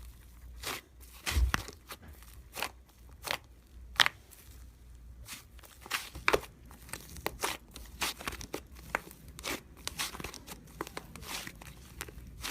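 Irregular crinkling, crunching handling noises with sharp clicks, a few a second, the sharpest about four seconds in.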